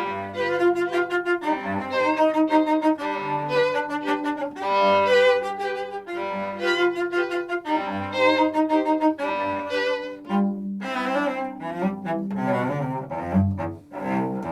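A string trio of two violins and a cello playing Baroque music live, the violins carrying the melody over a moving cello line in a steady pulse.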